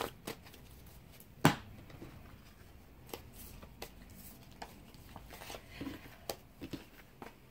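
Tarot cards being dealt and laid down on a wooden table: scattered light taps and card slaps, with one louder knock about a second and a half in.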